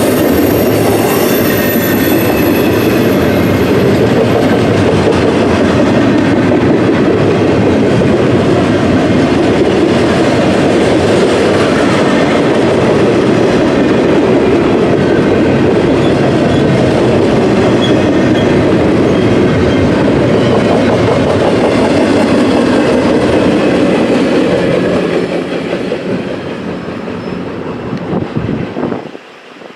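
Intermodal freight cars rolling past on the rails: a loud, steady rumble and clatter of wheels over the track, with a thin high wheel squeal in the first few seconds. The noise fades in the last few seconds and then drops away sharply as the train passes.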